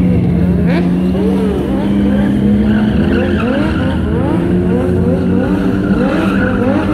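Stunt motorcycle engines revving hard: one engine is held at a steady high rev throughout while others rev up and down again and again in quick sweeps.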